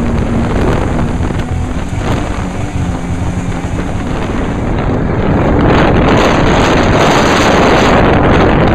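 Speedway sedan race car's engine running under racing load, heard from inside the cockpit, with wind buffeting the microphone. A steady engine note early on gives way to a louder, rougher roar about five seconds in.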